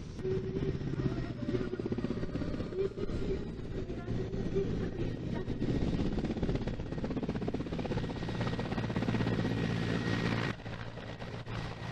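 Mil Mi-8-family transport helicopter hovering close, its rotor blades chopping over the turbine whine. The sound drops suddenly near the end.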